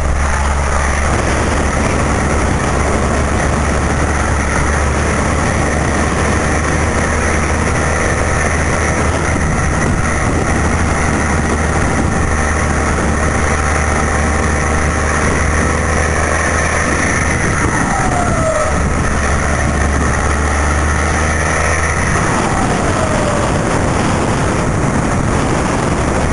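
Volkswagen 23-250E truck's diesel engine running loud and steady under load on the road, a deep drone with a strong low hum. About two-thirds of the way in, and again a few seconds later, the pitch falls briefly and the tone changes.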